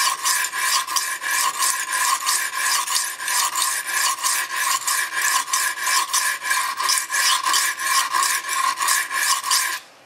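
Stainless steel kitchen knife stroked rapidly back and forth on a coarse sharpening stone, an even scraping rhythm of about three to four strokes a second that stops just before the end. Heavy strokes on the coarse grit, forming the cutting edge.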